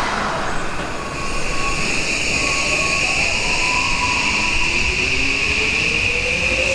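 Odakyu 1000-series electric train pulling away, its inverter and traction motors whining with a tone that rises steadily in pitch as it gathers speed, over a steady high-pitched whine.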